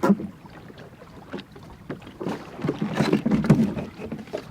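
Gear being rummaged through and pulled out of a small wooden sailing skiff's storage locker: irregular knocks, clunks and rustling, busiest about three seconds in.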